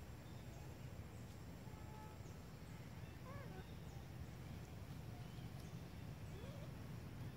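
Faint outdoor ambience: a steady low rumble with a few faint, short animal calls that rise and fall in pitch, one about three seconds in and another near the end.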